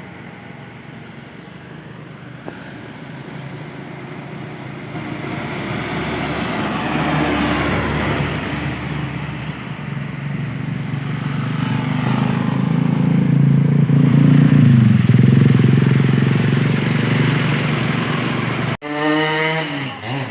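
Heavy truck engine labouring up a steep climb, growing louder as it approaches and loudest about three quarters of the way through. Near the end it cuts off abruptly, and a short sound rising in pitch follows.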